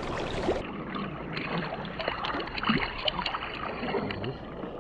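River water flowing and gurgling, with small irregular splashes.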